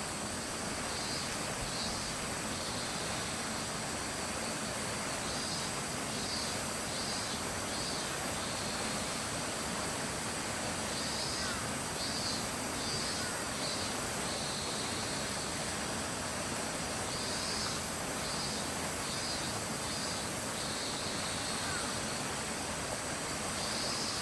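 Steady outdoor ambience with a high insect drone, and a high pulsing insect call repeated in phrases of four or five pulses about every six seconds.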